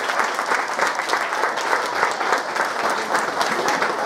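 Congregation applauding, a dense steady clapping.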